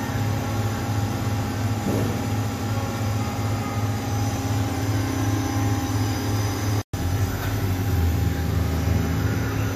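Steady hum and rumble of running workshop machinery, with an even pulsing low hum and a few steady tones above it. It cuts out for an instant about seven seconds in.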